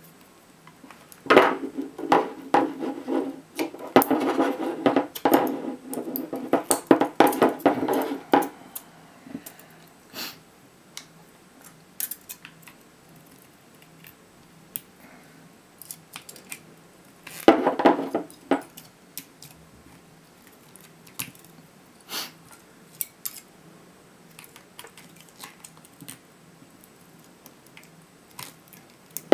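Pliers working the nickel connecting strips off 18650 lithium-ion cells: bursts of metallic clicking, snipping and scraping. It is busiest over the first eight seconds, with a second short burst a little past halfway and scattered single clicks in between.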